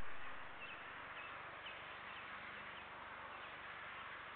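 Faint steady hiss of an air traffic control radio channel between transmissions, with faint short high chirps repeating through it.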